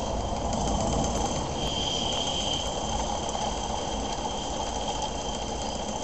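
Titan live-steam model engine running steadily: a light mechanical ticking from its moving parts over an even hiss.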